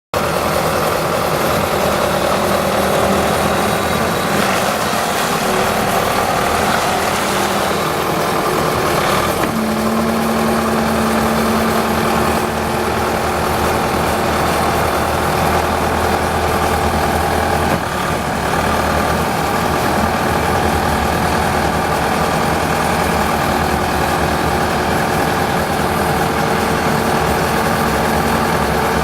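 2013 Bobcat T590 tracked skid steer's diesel engine running steadily at idle. A clearer steady hum comes in for a few seconds about ten seconds in.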